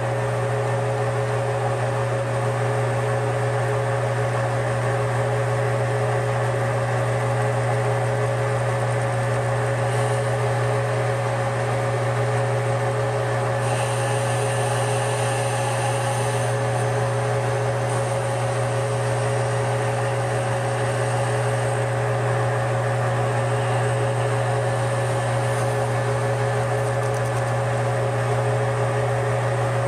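Metal lathe running at a steady speed with its four-jaw chuck spinning: a steady low hum with a higher whine above it, as the tool turns a tool-steel cam down to diameter.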